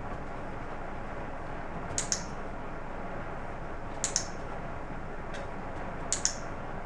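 A handheld dog-training clicker clicking three times, about two seconds apart, each a sharp double click of press and release, over steady room noise. Each click marks the dog's correct position for a treat.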